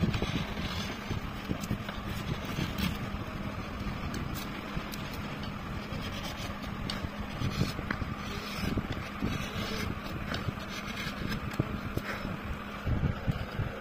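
Steady low rumble with a faint hum, over which a hand chisel makes occasional short scraping cuts as it carves a groove in wood.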